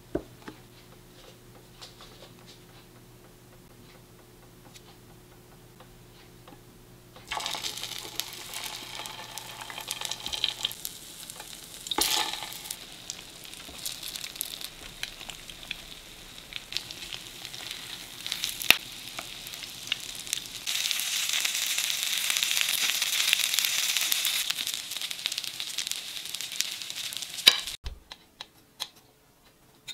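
Egg-battered, beef-stuffed shiitake mushroom caps frying in canola oil in a nonstick pan. The sizzle starts about a quarter of the way in, grows louder in the last third, and cuts off suddenly near the end, with scattered sharp clicks of a spatula against the pan. Before the frying starts there is only a low steady hum.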